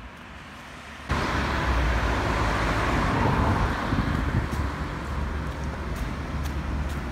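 Road traffic noise that starts abruptly about a second in, with a vehicle passing close by, swelling and then slowly fading.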